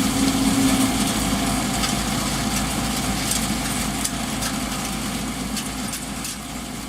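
John Deere 1075 combine harvester running steadily, its engine drone mixed with light ticks and rattles from the machinery. A strong steady hum drops away about a second in, and the whole sound slowly gets quieter.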